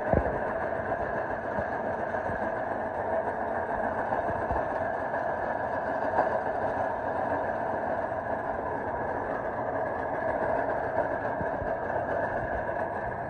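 Tractor-driven grain crusher running steadily, crushing grain into rolled feed, over the tractor's engine running at a constant speed. A continuous mechanical drone.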